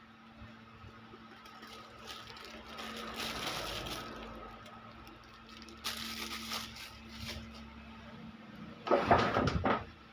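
Workbench handling noises during an electronics repair: scraping and rustling a couple of times, then a louder cluster of clicks and knocks near the end, over a steady low hum.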